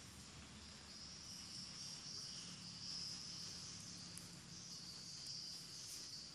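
Faint, steady high-pitched chirring of insects, wavering a little in strength, over a weak low hum.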